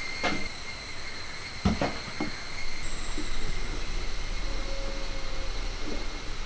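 Wooden rolling pin rolling over a sheet of peanut-jaggery candy on a wooden board: a steady rumble with a few knocks, the loudest a little under two seconds in.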